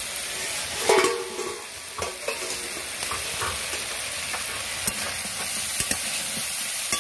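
Potato, pointed gourd and soya chunk curry sizzling in a metal kadai as it is stirred and sautéed down with spices, with a steady frying hiss. A loud knock of the stirring utensil against the kadai, with a brief ring, comes about a second in, and a few lighter knocks follow.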